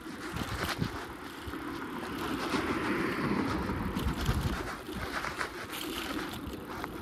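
Bicycle being ridden over pavement: steady tyre and road noise with wind buffeting the microphone and a few light knocks from the bike.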